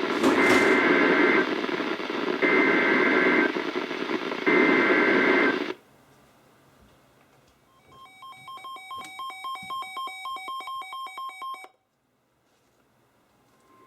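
NOAA Weather Radio SAME end-of-message signal: three one-second bursts of warbling two-tone data, a second apart, over radio static, marking the end of the alert. After a pause, a few seconds of rapid electronic beeping, about four beeps a second.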